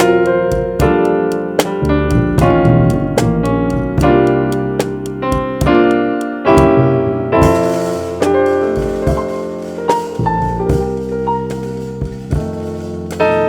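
A jazz trio of keyboard, bass and drums plays together, with keyboard chords over a moving bass line. Sharp, regular drum ticks keep time through the first half, and a steady cymbal hiss takes over from about halfway.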